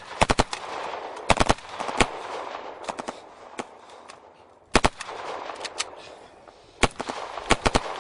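Gunfire in short bursts of two to four quick shots, with single shots between, each burst trailing off in echo.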